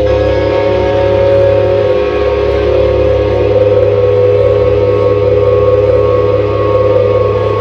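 Live rock band holding a loud, steady drone of sustained electric guitar and bass tones, with no drums.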